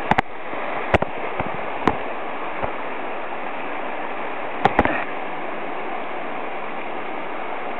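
Steady rushing of a mountain stream running high after rain, with a few short sharp clicks and knocks: two near the start, three more spaced over the next few seconds, and a pair a little before five seconds in.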